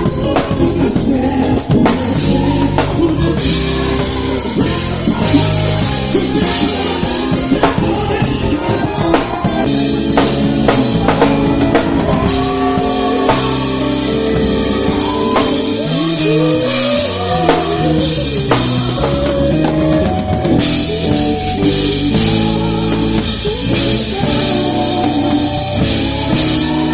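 Worship band music with singing over a drum kit and bass.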